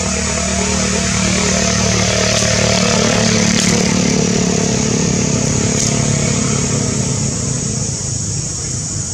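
Engine of a passing motor vehicle running steadily, growing louder over the first few seconds and fading toward the end.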